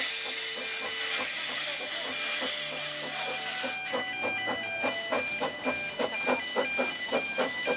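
Narrow-gauge steam locomotive pulling away, steam hissing from its cylinder drain cocks. About four seconds in the hiss dies away, and a rhythmic beat of about three strokes a second follows as the train moves off.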